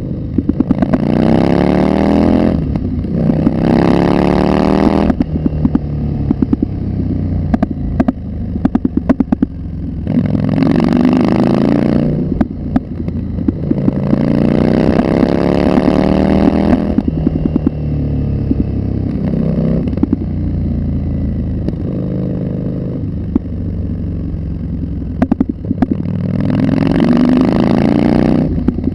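Street rod engine accelerating hard in about five pulls, its pitch climbing through each, with steadier lower running between. Sharp clicks and knocks sound between the pulls.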